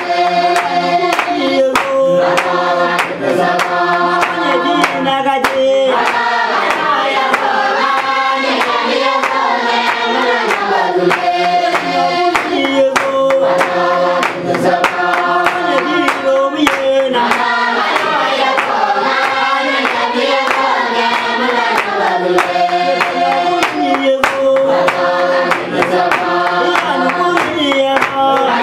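A group of adults singing together in chorus while clapping their hands in a steady rhythm.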